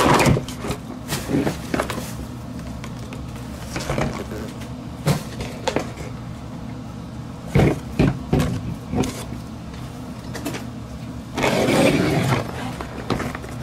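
GoPro Hero 5 retail packaging handled: a cardboard box and a clear plastic display case knocking and tapping in scattered short clicks, with a longer scraping rustle of cardboard sliding against cardboard near the end. A steady low hum sits underneath.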